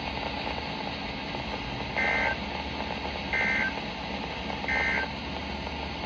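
NOAA Weather Radio SAME data header coming through a weather alert radio's speaker: three short bursts of two-pitch digital warble, about a second and a half apart, over steady radio static. This is the coded header that opens an emergency alert, here a severe thunderstorm warning.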